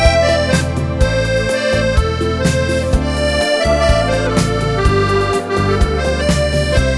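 Accordion playing a melody of sustained notes over low bass notes that change about once a second, with a steady beat.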